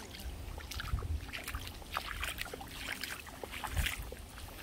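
Shallow stream water splashing and trickling in many small irregular splashes, over a low rumble.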